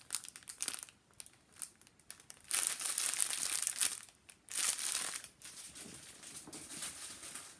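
Clear plastic bag of diamond painting drill packets crinkling as it is handled, in irregular bursts that are loudest in the middle.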